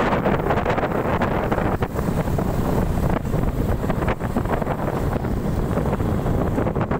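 Wind buffeting the microphone of a moving motorcycle: a loud, steady rumble.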